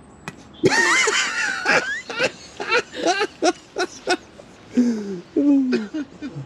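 Hearty human laughter: a high, wavering shriek of laughter breaking into quick pulses of laughing about four a second, then lower laughing voice sounds near the end.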